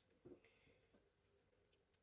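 Near silence: room tone, with one faint, short rustle.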